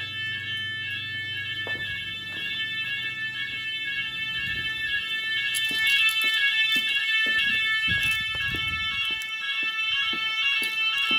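Evacuation sirens of a Chubb type 2a fire alarm system sounding continuously during a general alarm test: several sirens at once make a steady, high, shrill chord of tones. The alarm grows louder about halfway through.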